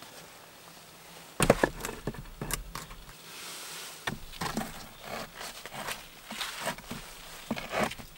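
Flat stones knocking and scraping against one another as they are shifted and set by gloved hands on a dry stone wall: a few irregular clunks and scrapes, the loudest about a second and a half in.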